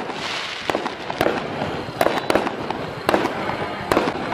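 Fireworks going off: sharp bangs at irregular intervals over a steady crackling hiss.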